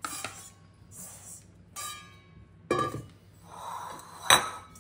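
Kitchen handling sounds as a bowl is oiled: a few short squeaks and soft rubbing, then one sharp knock near the end.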